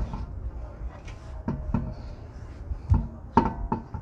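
About seven sharp metallic knocks and clinks, several with a short ring, the loudest coming near the end, over a low rumble. These sound like metal tools or parts being handled while the wheel is put back together.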